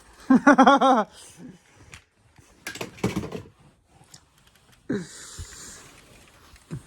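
A person's voice making short wordless vocal sounds with a wavering pitch, followed by a faint steady hiss.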